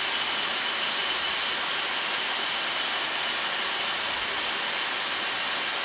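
Steady flight-deck noise of a Boeing 737-800 on final approach in landing configuration, gear down and flaps 40: an even rush of air and engine noise with a faint, steady high whine.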